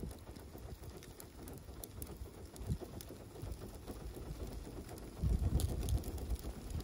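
Catfish steaks sizzling and crackling in a wire grill basket over charcoal, with scattered sharp crackles. A low rumble underneath grows louder about five seconds in.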